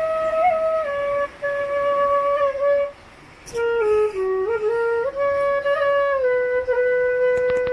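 Solo flute playing a slow melody of long held notes with small ornamental bends, with a breath pause about three seconds in.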